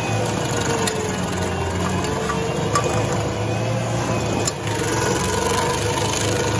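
Rayco RG80 stump grinder running under load, its cutter wheel grinding into an oak stump. A steady engine drone whose pitch wavers slightly as the wheel bites, with a few sharp clicks.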